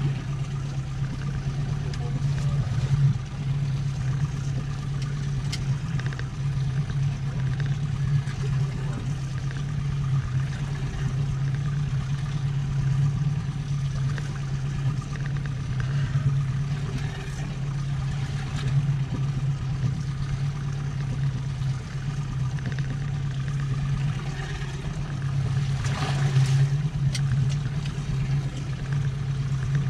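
Fishing boat's engine running steadily with an even low drone, with a few short knocks near the end.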